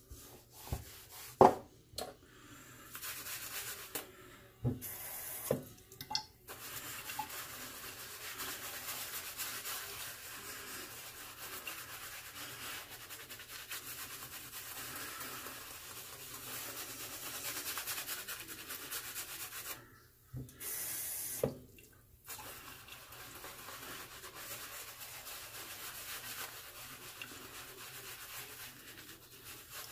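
Steady rubbing and scraping against the scalp during a head shave, with a few sharp knocks in the first couple of seconds, the loudest about a second and a half in. It stops briefly twice early on and for about two seconds around twenty seconds in, where there is another knock.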